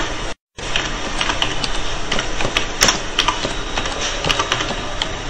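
Computer keyboard keys clicking irregularly over a steady hiss of room noise. The sound cuts out completely for a moment about half a second in.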